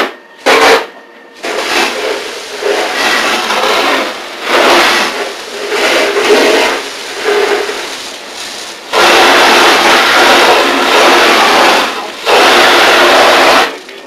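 Fire hose nozzle spraying water in bursts as it is opened and shut: two short blasts, an uneven spray, then two long full blasts of about three and one and a half seconds near the end.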